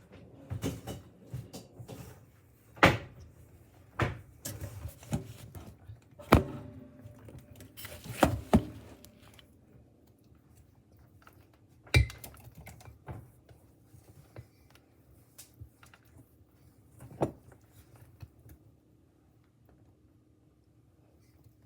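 Cake batter being mixed by hand in a bowl: a utensil scraping around the bowl and knocking against its side at irregular intervals, busier in the first half and sparser later.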